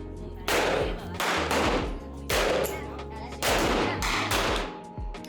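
A series of gunshots, roughly one a second or two apart. Each sharp crack is followed by a ringing tail that fades over about half a second.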